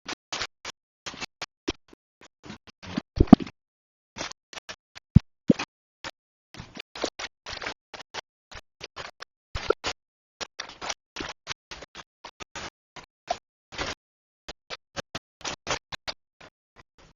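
Kitchen cooking sounds: an irregular run of short taps, knocks and scrapes from utensils being handled, with a few louder knocks about three, five and ten seconds in.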